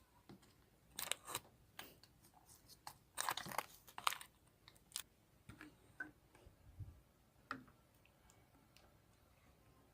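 Clear slime being handled, giving scattered sticky pops and crackles, thickest in a run about three to four seconds in.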